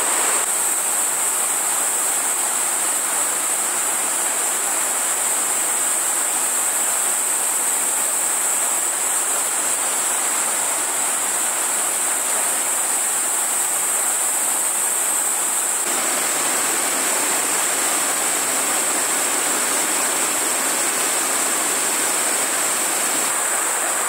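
Shallow mountain stream rushing over granite rocks and small rapids, a steady wash of water noise with a constant high hiss above it.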